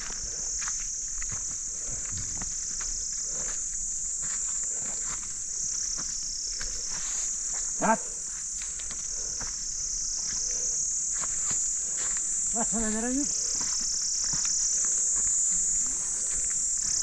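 A steady, high-pitched chorus of insects, with Himalayan goats bleating twice: one short, loud bleat about eight seconds in and a longer, quavering bleat about thirteen seconds in.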